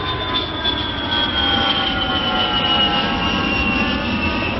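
Jet airplane flying over: a steady rush of engine noise with a high whine that slowly falls in pitch as it passes.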